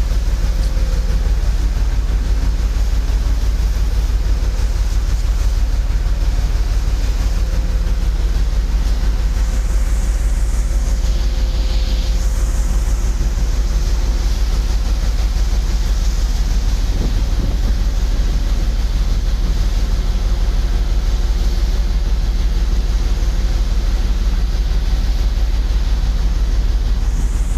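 A boat engine running steadily, a fast even low throb with no change in speed.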